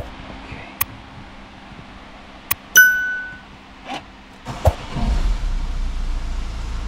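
A few clicks and a single dashboard warning chime, then about five seconds in the Peugeot 508's 2.0 HDi four-cylinder diesel catches almost at once and settles into a steady low idle. This is the engine's first start after a timing belt replacement.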